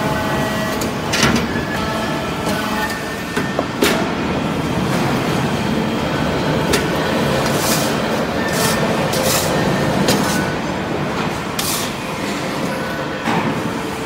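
Hydraulic metal-chip briquetting press running: a steady mechanical drone with a few faint steady tones, broken by several short sharp clicks and hisses as it works.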